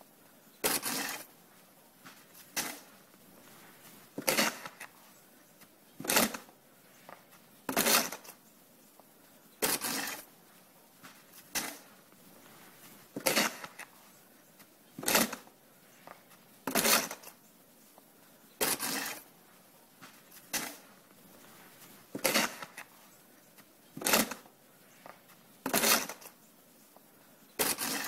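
Snow shovel scraping along a snowy walk in a steady rhythm, one short scrape about every two seconds, each followed by a smaller scuff.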